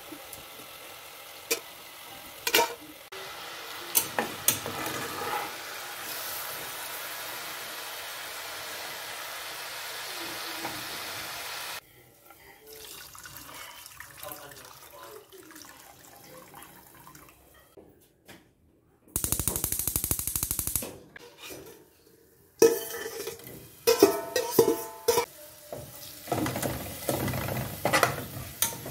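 Hot oil sizzling in a pot while fried garlic is lifted out with a spatula, with sharp clicks of the spatula on the metal. About two-thirds through comes a short loud rush of oil being poured through a mesh strainer. After that the spatula scrapes and clicks against the pot as food is sautéed in the sizzling oil.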